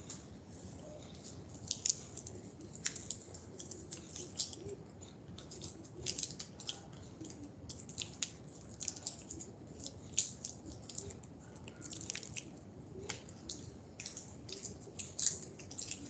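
Irregular light clicks and taps, several a second, over a faint steady hiss.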